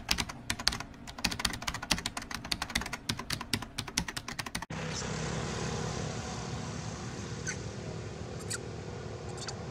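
A rapid keyboard-typing sound effect, a dense run of clicks, stops abruptly about halfway through. It gives way to steady outdoor background noise with a few brief high chirps.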